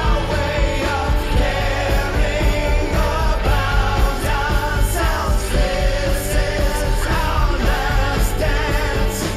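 A rock song with a sung vocal line over a steady drum beat.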